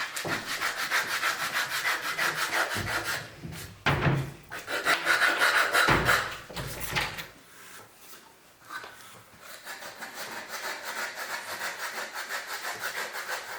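Fast, even scraping strokes, several a second, with a quieter patch a little past the middle.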